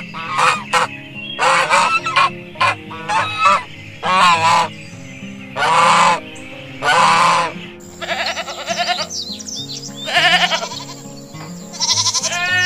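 Domestic geese honking: a quick run of short honks, then longer honks about a second apart, followed by softer, quieter calls. Near the end a sheep gives a wavering bleat.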